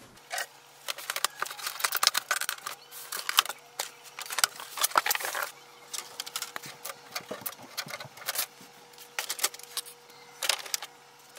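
A new HP OfficeJet Pro 8028 inkjet printer being unpacked: packing material rustles, and the printer's plastic parts give scattered clicks and knocks as they are handled. A faint steady hum runs underneath.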